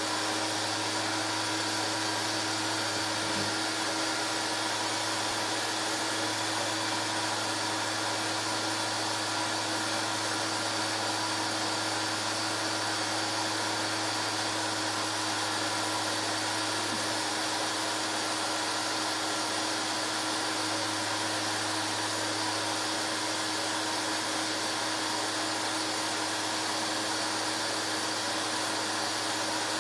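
Steady whir of a film projector's motor and cooling fan running, with a constant low hum and a steady tone beneath it.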